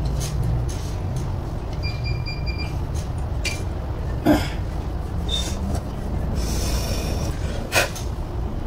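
Small metal parts and a screwdriver clicking and knocking against a truck alternator's rear housing as it is taken apart by hand, with two louder knocks about halfway and near the end. A steady low rumble runs underneath.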